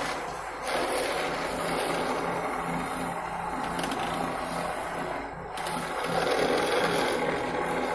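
Heavy road-repair machinery running: a steady engine noise with a low hum that pulses on and off several times a second.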